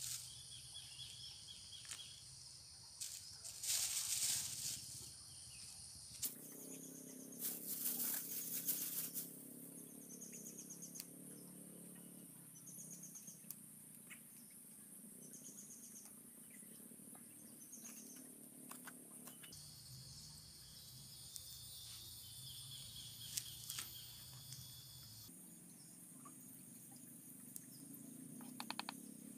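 Outdoor ambience: a steady high insect hum and a bird repeating a short high call about every second and a half, with rustling around four and eight seconds in and light knife taps on a cutting board near the end.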